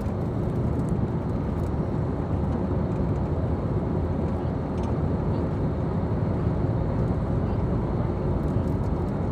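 Steady road noise heard from inside a car cruising at motorway speed: the even rumble of tyres and engine, with no change in pitch or level.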